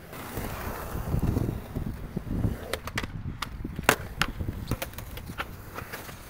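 Skateboard wheels rolling over a concrete bowl with a low rumble, broken by a run of sharp clacks of the board hitting the coping and landing, the loudest about four seconds in.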